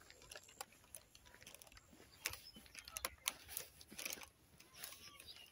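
Faint, irregular clicks and ticks, a few short sharp ones at a time.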